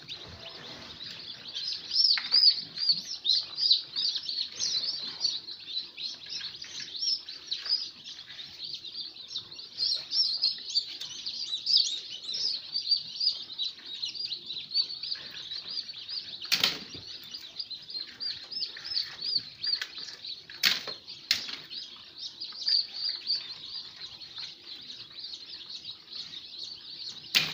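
Many newly hatched chicken chicks peeping continuously in high, rapid chirps, with a few sharp knocks in between.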